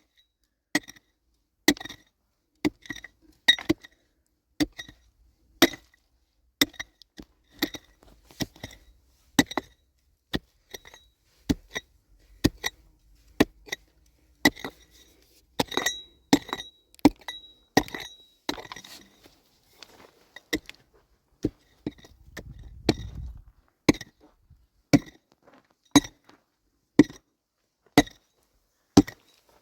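Repeated sharp clinking strikes, about one a second, each with a short ringing tone, like metal striking a hard surface. A brief low rumble comes about three-quarters of the way through.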